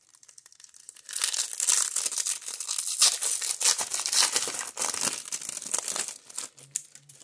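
The shiny foil wrapper of a 1994 Topps Stadium Club baseball card pack being torn open and crinkled as the cards are pulled out. It is a dense run of crackling and rustling that starts about a second in and dies down near the end.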